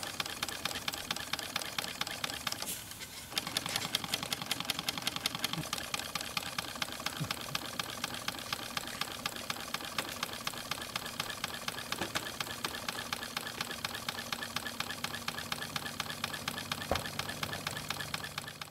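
Miniature model pumping steam engine running on compressed air, with a rapid, even clicking beat. The beat breaks off about three seconds in and picks up again as the engine is put into reverse with its reversing gear.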